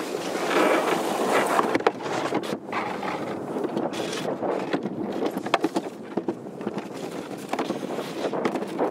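A summer toboggan sled running fast down its trough track: a steady rolling rumble broken by frequent clicks and knocks as it bumps along, with wind noise buffeting the microphone.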